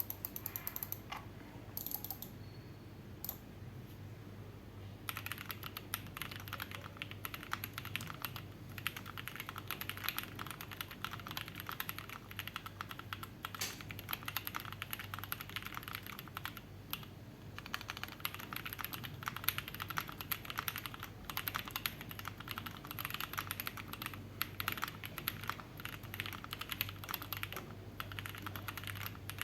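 Typing on a CMM.Studio Fuji75 gasket-mount mechanical keyboard with Krytox-lubed Boba LT switches on an aluminium plate, CMK keycaps and no PE foam. A few scattered keystrokes at first, then continuous rapid typing from about five seconds in, with a few short pauses. A low steady hum sits underneath.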